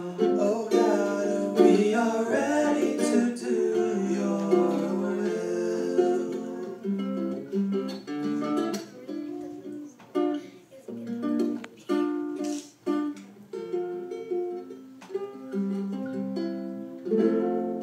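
Small-bodied acoustic guitar played in a slow, gentle song. Male voices sing over it for about the first six seconds, then the guitar carries on alone, picking separate notes and chords with short pauses between them, and grows louder again near the end.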